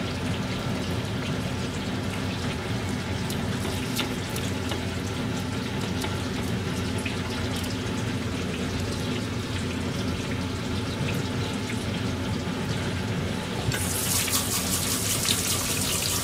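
Steady kitchen hiss and hum with a few light clicks as panko is pressed by hand onto stuffed lotus-root slices. About 14 s in, a tap is turned on and water runs and splashes into the sink.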